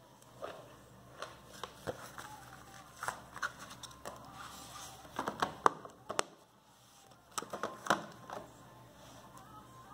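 Plastic CD jewel case and DVD case being handled: irregular clicks and taps of plastic with light rustling of a paper insert, in louder clusters about halfway through and near the end.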